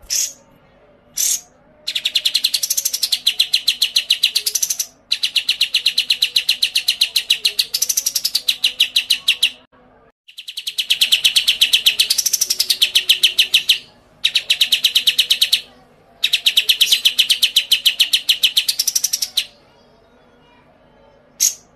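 A songbird sings five long, very fast trills of rapidly repeated sharp notes. Each lasts a few seconds and has a whistled note rising and falling in its middle, with a few short single chirps before and after.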